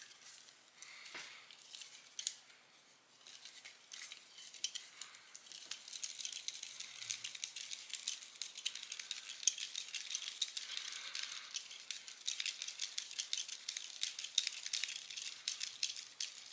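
Hand driver tightening a small M3 screw through the steering knuckle of an RC crawler axle: a run of quick, light clicks and small rattles of tool and metal parts that grows denser after a few seconds.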